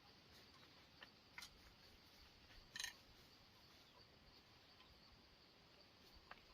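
Near silence with a faint hiss, a few soft clicks, and one brief scratchy rustle a little under three seconds in.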